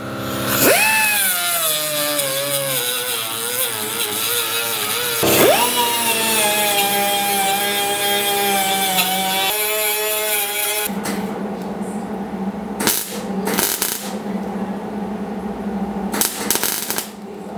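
A handheld cut-off tool with a small abrasive wheel spins up twice and cuts into car-body sheet steel. Its whine drops in pitch as the wheel bites into the metal. From about eleven seconds in, a MIG welder crackles steadily with a few sharp pops as it welds the seam.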